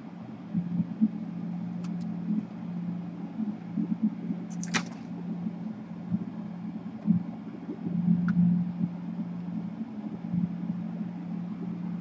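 Steady low background hum, with a few faint clicks and rustles as gloved hands handle the plastic chassis of an opened laptop.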